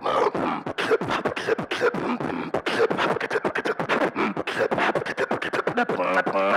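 Beatboxing into a handheld microphone: a fast, rhythmic run of mouth-made percussive sounds, several hits a second, with short pitched vocal tones mixed in.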